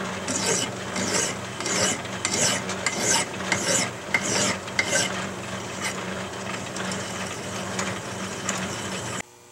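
Hand file rasping across a steel bolt spinning in a metal lathe, in strokes about twice a second that grow softer later on, over the steady hum of the running lathe. It cuts off abruptly near the end.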